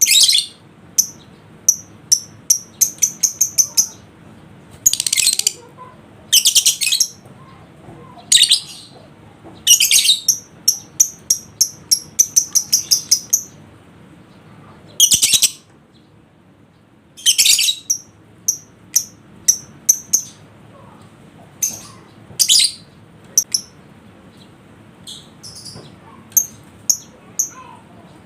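Lovebird calling: quick runs of high, shrill chirps broken by longer harsh chattering bursts, the 'ngekek' trill used as bait audio to set other lovebirds calling.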